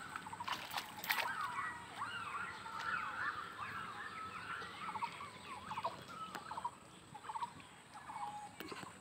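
A chorus of animal calls from several callers: overlapping short chirps and quick rattling trills, with two sharp knocks about half a second and a second in.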